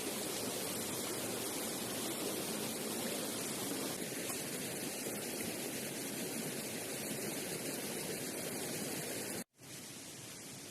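Steady rushing of flowing water, an even noise without rhythm. It cuts out for an instant near the end and comes back a little quieter.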